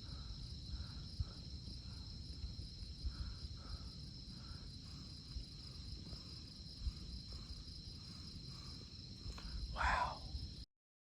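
Night insects, crickets or katydids, trilling in a steady high chorus with a low rumble underneath.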